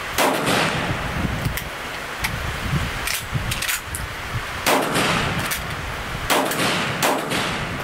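Sjögren 12-gauge inertia-action semi-automatic shotgun firing four shots, each with a short echo. The first comes just after the start, and after a pause of about four seconds three more follow, the last two under a second apart. Wind rumbles on the microphone throughout.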